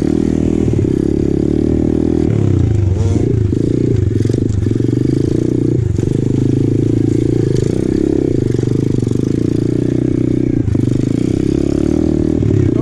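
Apollo RFZ 125cc pit bike's single-cylinder four-stroke engine running under load on a rough climb, the revs rising and dropping several times with the throttle. Short knocks and rattles from the bike over rocks break in now and then.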